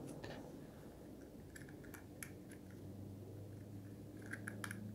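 Faint, scattered light clicks and taps of small screws and an Allen key being handled against a soldering iron's clear plastic case while its screws are refitted, with a few clicks close together near the end, over a low steady hum.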